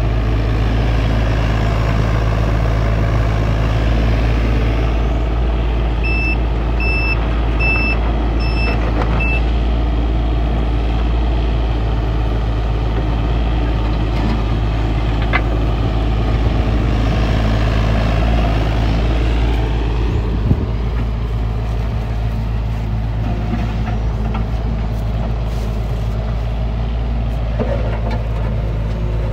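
Takeuchi TB325R mini excavator's diesel engine running steadily under hydraulic load as it digs. About six seconds in, an alarm beeps five times in quick succession.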